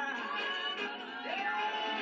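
Film end-credits music playing through a television's speakers, recorded in the room, with a held melody line sliding up to a long note in the second half.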